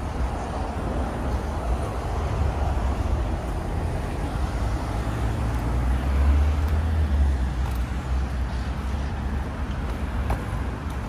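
Steady road traffic noise from cars driving round a roundabout, a continuous low rumble that swells about six seconds in as a vehicle passes closer.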